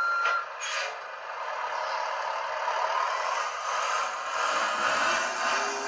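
Tamiya 1/14 scale RC truck driving: a last reverse-warning beep at the start, then a steady mechanical whir with some rattle that slowly rises in pitch.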